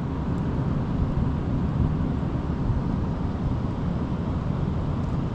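Steady low rumble of wind buffeting the microphone, flickering in level with no pitch to it.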